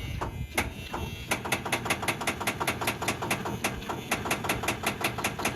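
Tractor starter solenoid chattering as the key is turned: a rapid, even clicking at about seven clicks a second while the engine fails to crank. The clicking is the sign of too little current reaching the starter, which the owner puts down to a bad battery connection or a starter that has given out.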